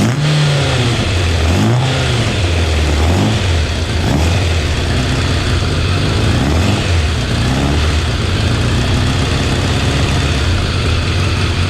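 Motorcycle engine running on freshly rebuilt Keihin carburettors, its revs rising and falling repeatedly as the throttle is blipped. It keeps running, which the owner finds promising for the rebuild.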